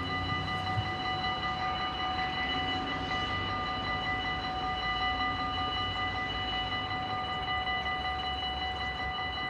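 Dutch level-crossing warning bells ringing steadily, several high tones held without a break, while the crossing's barrier arms come down: the warning that a train is approaching.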